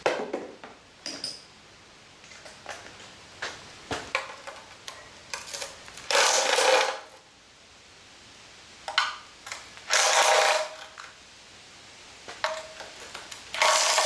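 Metal hand tools clicking and knocking against engine parts during a teardown, with three short spells of rapid rattling, each about a second long, near the middle, about two-thirds through and at the end.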